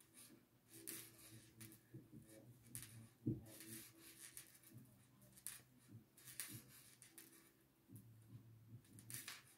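Near silence with faint, intermittent rustling and scraping of yarn being drawn through stitches by a crochet hook, and one soft knock about three seconds in.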